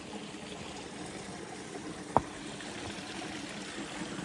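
Water trickling and pouring steadily from a water-source spigot, with one sharp knock about two seconds in.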